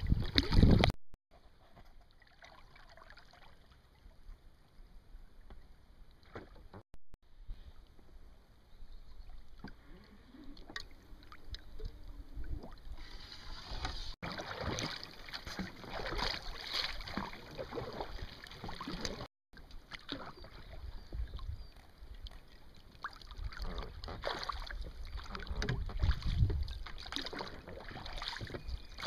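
Oars of a two-seat inflatable boat dipping and splashing in river water, with water lapping around the boat and small irregular splashes. A loud rush of wind on the microphone fills the first second, and the sound breaks off briefly a few times at cuts.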